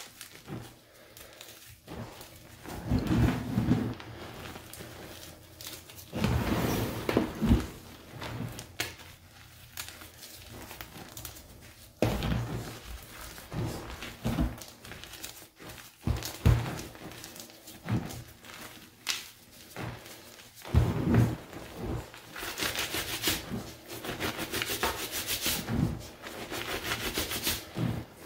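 Hands crushing chunks of gym chalk, plain and dyed, into loose powder in a cardboard box: irregular crunches and soft thuds as pieces break. Near the end comes a long run of quick gritty crumbling as the powder is rubbed and squeezed between the hands.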